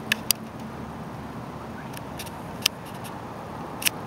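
Steady low background noise with a handful of sharp, short clicks scattered through it: two near the start, a few around the middle and one near the end.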